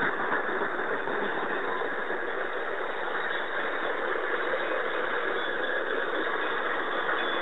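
Grain hopper wagons of a long freight train rolling past, a steady, unbroken noise of steel wheels on the rails.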